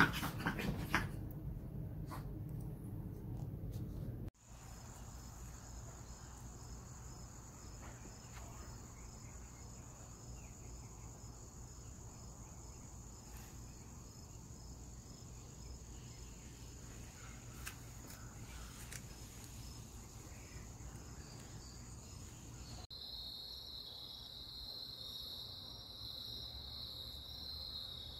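Two chihuahuas playing and scuffling, with a few sharp clicks in the first couple of seconds. Then a steady outdoor chorus of insects: a continuous high trill with faint pulsing. About 23 seconds in it switches abruptly to a different, louder high-pitched insect drone.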